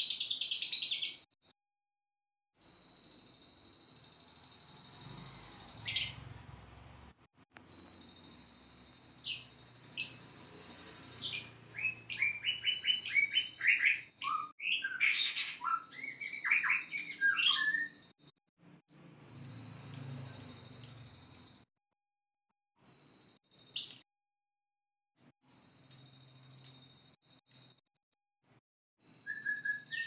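Cage birds calling, a lovebird and a white-rumped shama (murai batu): a steady high-pitched chatter with sharp single chirps. About halfway through comes a run of quick, varied whistled notes that glide up and down. The sound drops out to silence several times.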